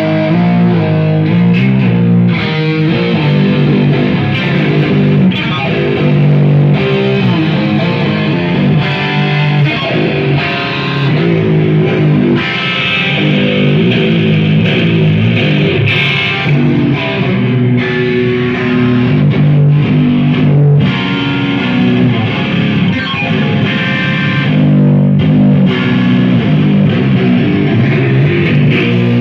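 Electric guitar played through an amplifier with effects for a tone check: a continuous stream of quickly changing notes and chords, much of it in the low register.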